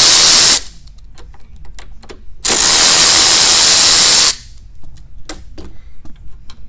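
Power driver with a Torx 25 bit spinning out small bolts in two loud bursts, one ending just after the start and one of about two seconds in the middle, with light clicks of handling between and after.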